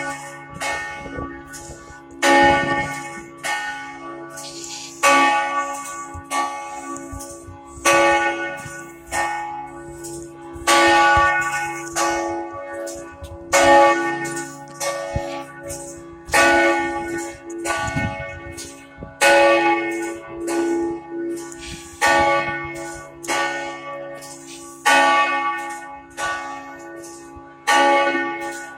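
Cathedral church bell tolling, a strong stroke about every three seconds with lighter strokes in between, each ringing on into the next.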